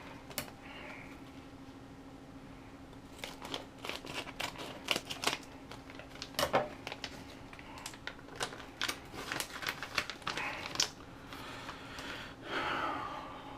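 A run of irregular light clicks and taps, densest in the middle stretch, over a steady low hum, with a soft rustle near the end.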